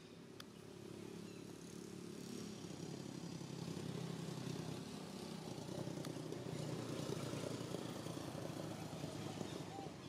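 A motor running, growing louder over the first few seconds, holding steady, then easing off near the end.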